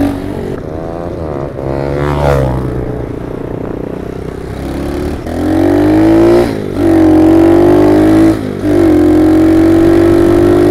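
Monkey bike's small single-cylinder engine ticking over at low revs, with a short rev about two seconds in. From about five seconds in it pulls hard at high revs, the revs dropping briefly twice as it shifts up through the gears.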